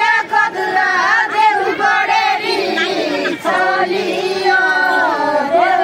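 A group of women singing a folk song together, several voices on the same held, gliding notes, while they dance in a circle.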